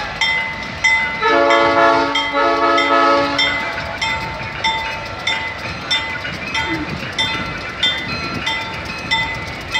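Diesel locomotive air horn sounding a chord of several tones in two blasts, about a second in, the second blast longer. Underneath, a bell rings repeatedly about twice a second as the train rolls slowly past.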